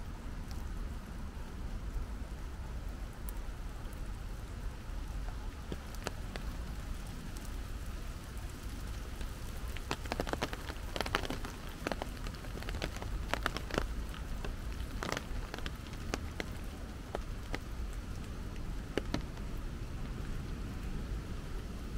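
Steady rain falling, with a run of louder sharp ticks about halfway through.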